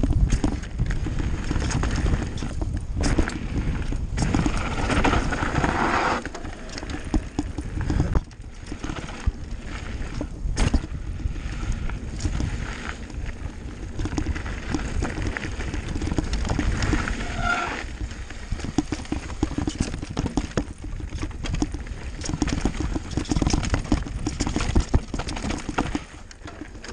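Mountain bike riding down a rough dirt singletrack: tyres rolling and crunching over dirt and stones, the bike rattling and knocking over bumps, with wind rumbling on the microphone.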